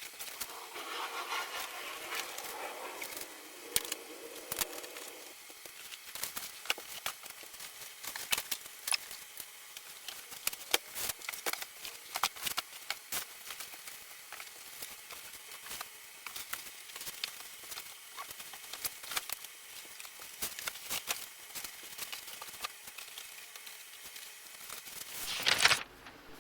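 Books and comic boxes being handled and set onto a shelf: a rapid, irregular scatter of clicks, taps and knocks, sped up in time-lapse.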